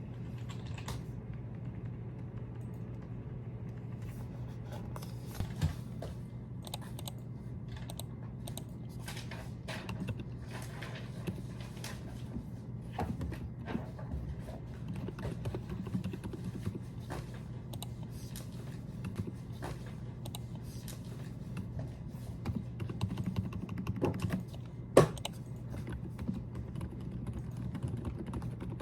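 Typing on a computer keyboard, keystrokes coming in irregular runs over a steady low hum, with one sharper, louder click near the end.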